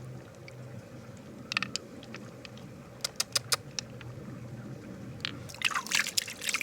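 Sharp clicks and clinks of small hard objects knocking together: a few single ones, four quick clicks around the middle, then a dense clatter near the end.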